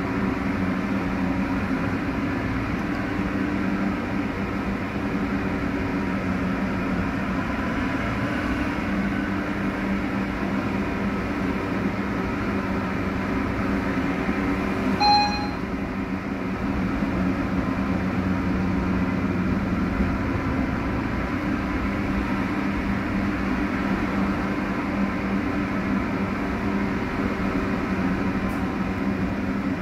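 Interior running noise of a BN PCC tram under way on rails: a steady rumble with a steady low hum. A single short ringing tone sounds about halfway through.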